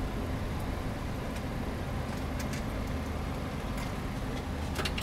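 Bottle vending machine working through a selection to deliver the bottle: a steady low mechanical hum with a few faint clicks, more of them near the end.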